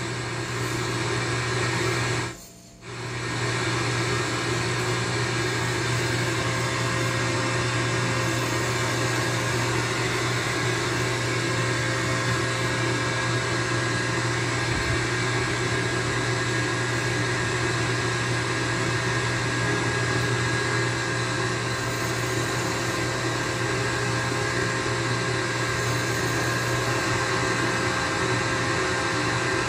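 Homebuilt one-transistor regenerative radio receiver putting out steady static hiss over a low hum, with faint steady whistles in it. The sound cuts out briefly about two and a half seconds in, then carries on unchanged.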